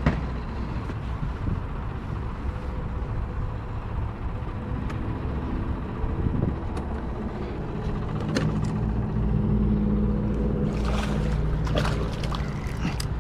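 A boat motor running steadily as a low hum, building up about eight seconds in and easing off near the end, with a few light clicks over it.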